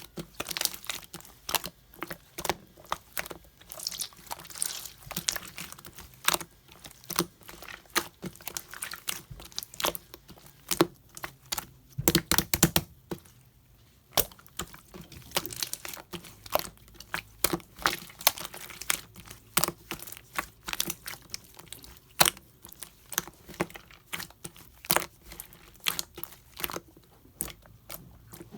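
Hands squishing, stretching and pressing clear slime, giving a dense run of irregular sticky clicks and pops, with a thicker, louder squish about twelve seconds in.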